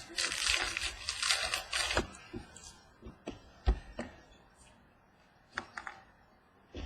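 Trading cards being handled: a papery rustle for about two seconds, then scattered light taps and clicks as cards are moved and set down.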